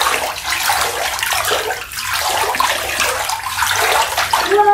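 Water in a bathtub splashing and sloshing in uneven surges as it is churned into waves.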